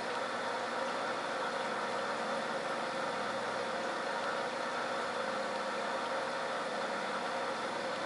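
Steady, unbroken noise of aquarium aeration: an air stone bubbling continuously, with the steady hum of the air supply beneath it.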